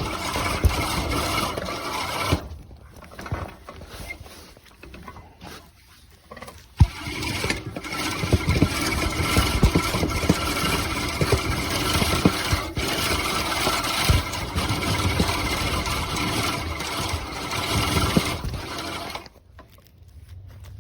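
Earthwise 16-inch seven-blade manual push reel mower being pushed through grass, its spinning reel whirring and clattering as it cuts. The sound drops away for a few seconds about two and a half seconds in and again near the end as the mower stops.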